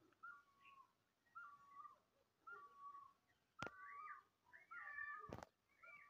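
Faint animal call: a short high note repeated about once a second, each note dipping slightly in pitch at its end. Two sharp knocks come about three and a half and five seconds in.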